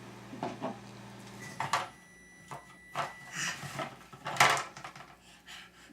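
Toy animals being handled, giving a scatter of light clicks and knocks. A faint steady high tone runs for under two seconds, starting about a second and a half in.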